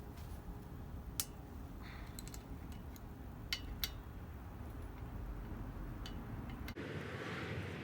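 A few sharp, isolated metallic clicks and taps of hand tools working on a BMX bike's handlebar stem, one about a second in and two close together a little past the middle. Near the end the background turns to a steadier hiss.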